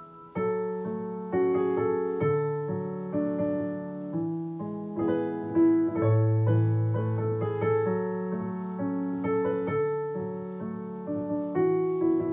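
Background piano music: a gentle melody of single notes over soft chords, each note struck and left to fade.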